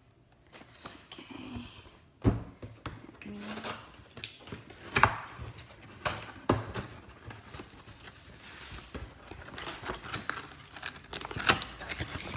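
A large cardboard box being set down and handled on a granite countertop: scattered knocks and thumps, the loudest about two seconds in and again about five seconds in, with rustling and scraping of cardboard as its top flaps are worked open.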